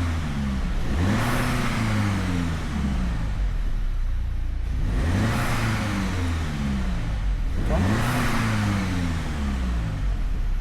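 Audi TT 2.0 TFSI four-cylinder turbo petrol engine revved up and let fall back to idle about three times while stationary, heard from inside the cabin. It runs without a misfire at these revs, although the car has a logged cylinder 1 and 4 misfire fault.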